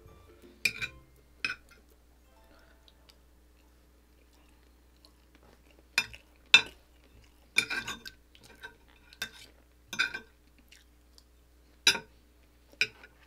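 Metal spoon and fork clinking and scraping against a plate while cutting pork adobo: sharp, irregular clinks, two about a second in, then a run of them from about six seconds on.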